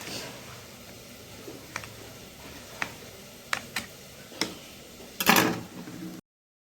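A few light, separate clicks and taps of kitchen utensils against dishes, then a brief louder clatter about five seconds in, after which the sound cuts off abruptly.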